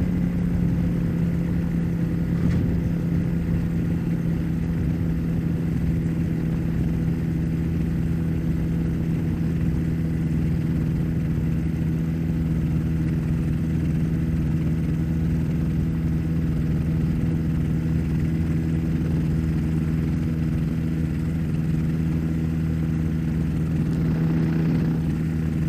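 Rotax 582 two-stroke engine and two-blade propeller of a Spectrum Beaver ultralight running at steady power while the aircraft rolls along a paved runway at high taxi speed. The engine note holds one even pitch throughout.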